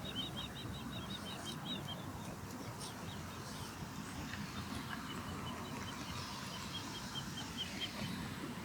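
Osprey calling: two rapid series of short, high whistled chirps, one in the first couple of seconds and a longer one from about halfway to near the end, over a steady low background rumble.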